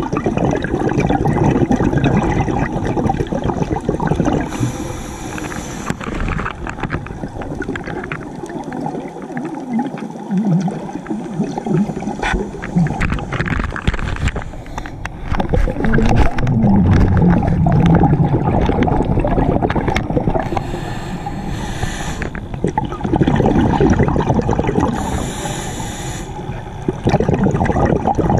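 Scuba diver's breathing heard underwater: exhaled bubbles gurgling and rumbling, broken by three short hisses of the regulator.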